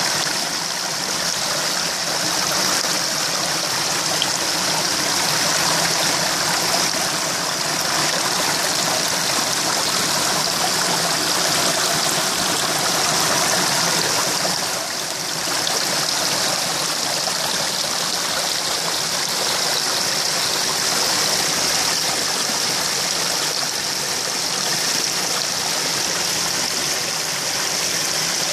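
Steady rush of churning, bubbling water in a koi pond that is being aerated, dipping briefly about halfway through.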